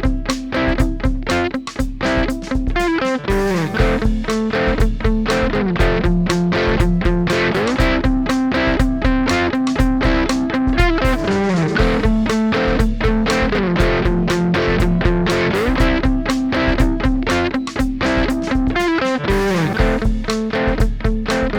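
Electric guitar played through an Xotic EP Booster pedal into a Vox MV50 AC amp, lightly driven. Chords are struck in a steady rhythm, with slides up or down the neck to a new chord every few seconds.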